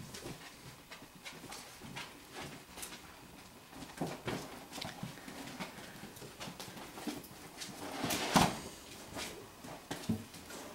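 Five-week-old golden retriever puppies moving about on a rubber floor mat among plastic toys: scattered small clicks and taps of paws and claws, with a louder knock about eight seconds in.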